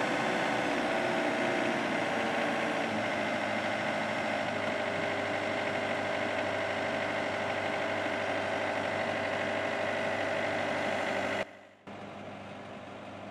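Yanmar YB451 mini excavator's diesel engine running steadily. About eleven seconds in it cuts off abruptly and comes back quieter.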